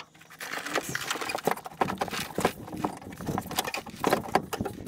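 Irregular knocks, clicks and rattles of work under a truck: a mechanic's creeper being shifted on its casters over rough ground while parts are handled, with short scraping hiss among the knocks.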